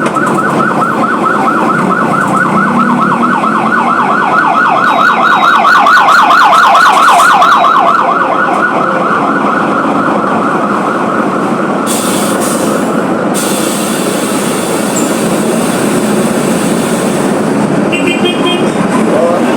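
Mercedes-Benz OF 1721 city bus's diesel engine running on the move, with a siren wailing in quick repeating sweeps over it; the siren swells to its loudest about six or seven seconds in, then fades. A brief hiss about twelve seconds in, and a short chime near the end.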